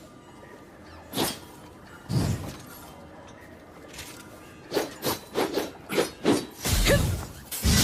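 Naginata combat sound effects: a strike about a second in and another about two seconds in. Later comes a quick flurry of about six strikes, then a loud, heavy impact with a low thud near the end.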